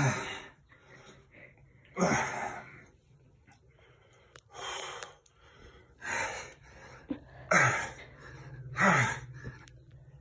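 A man's hard, effortful exhalations, about five of them, some with a short grunt, coming closer together in the second half: straining breaths through the last push-ups of a long set.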